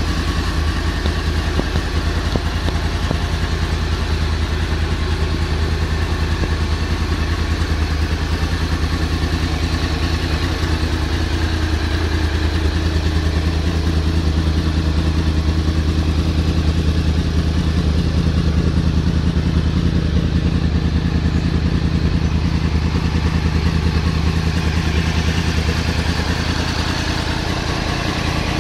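Stock 2010 Yamaha R1's crossplane-crank inline-four engine idling steadily through its stock exhaust, the engine note holding an even pitch without revs.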